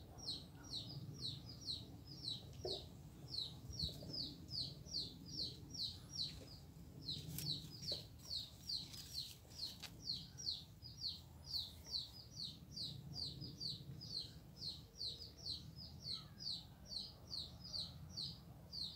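A small bird calling over and over: short, high, falling chirps at an even pace of about three a second.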